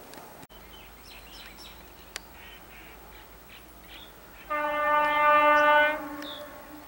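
A locomotive horn sounds one steady blast, about a second and a half long, starting about four and a half seconds in. Before it, short bird chirps come and go.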